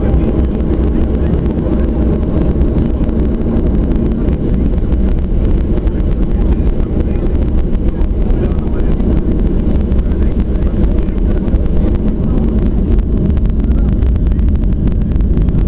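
An airliner's jet engines running loud and steady at takeoff power, heard from inside the passenger cabin as a deep, even roar. A faint high whine sits over it for a few seconds partway through.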